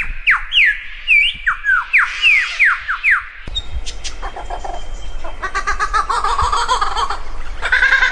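A bird calling: a quick run of about ten sharp, downward-sliding whistles, then, about three and a half seconds in, a switch to harsher, buzzy, rapidly repeated calls over a louder background.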